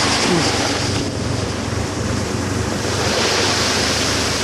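Wind buffeting the camcorder microphone: a steady rushing hiss that swells near the start and again about three seconds in, over a faint steady low engine hum.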